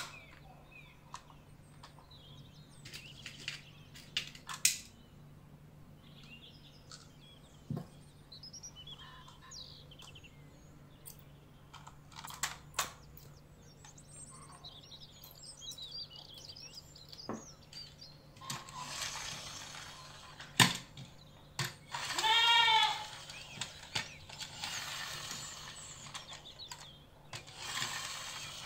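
Small plastic clicks and taps as a plastic toy airplane is pried apart with a small screwdriver. In the last third a steady hiss comes in, and a goat bleats once, about two-thirds in.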